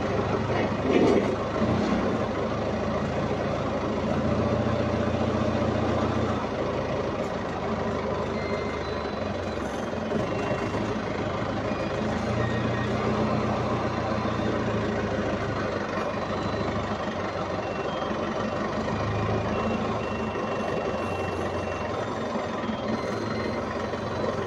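Tractor engine running steadily under the operator's control, its low note swelling and easing every few seconds.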